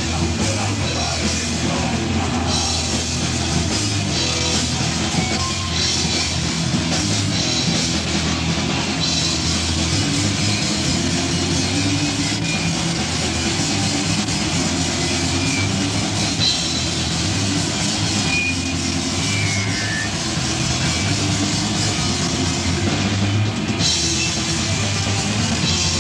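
A heavy metal band playing live: distorted electric guitar over a drum kit with cymbals, dense and steady throughout.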